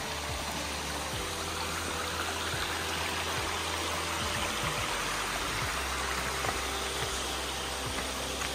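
Small mountain creek cascading over rocks and a low waterfall: a steady rush of running water.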